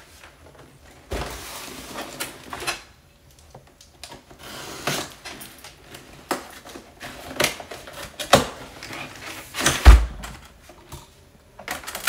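Cardboard boxes and inserts being handled: rustling, scraping and several knocks as a flat carton is lifted out, slid and set down. The loudest is a heavy thump about ten seconds in.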